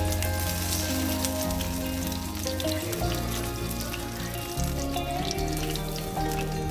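Food sizzling and crackling in a hot pan, with many small pops, under background music with slow sustained bass notes.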